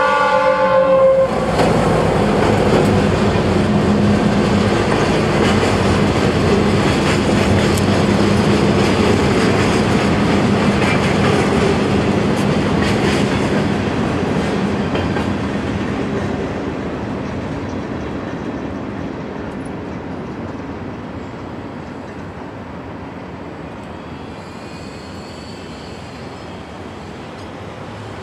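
Norfolk Southern GP38-2 diesel locomotive's horn cutting off about a second in, then the freight cars rolling through the grade crossing with wheels clacking over the rail joints. The rolling noise fades through the second half as the train moves away.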